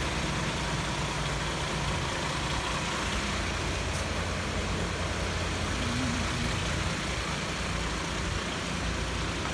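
Turbo diesel engine in a Toyota Land Cruiser hardtop idling steadily with a low rumble.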